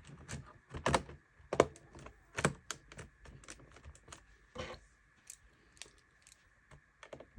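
Irregular plastic clicks and taps as a laptop's bottom cover is fitted back on and pressed into place, louder and closer together in the first three seconds, sparser after.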